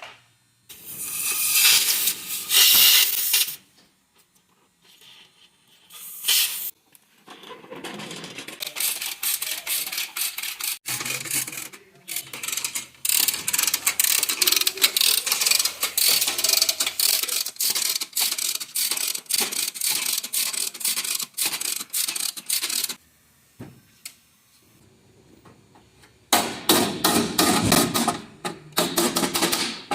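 Repeated scraping and rubbing on a hard surface, in stretches a few seconds long that stop abruptly, with a fast run of clicks near the end.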